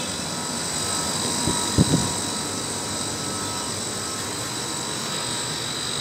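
Emerson heat pump water heating plant running: a steady mechanical drone with a few faint, thin high tones. A couple of low thumps come about two seconds in.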